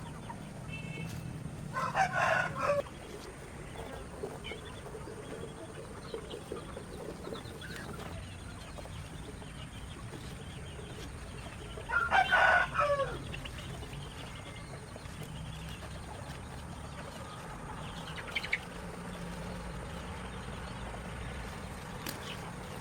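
A rooster crowing twice, about ten seconds apart, each crow lasting about a second, with a shorter, fainter call near the end.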